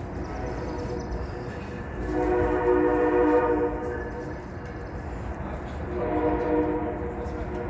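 Train horn sounding two long blasts, a steady chord of several tones, the first about two seconds in and the second near the end, over a constant low rumble.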